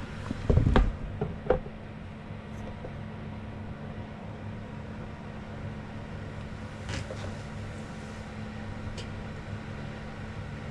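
A few knocks and thumps in quick succession between about half a second and a second and a half in, as the camera is handled and set down. After them comes a steady low hum, with a few faint clicks later on.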